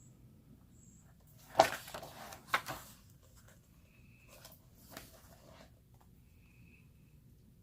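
Photobook pages being handled and turned: two sharp paper swishes about a second apart, the first the loudest, then fainter rustles.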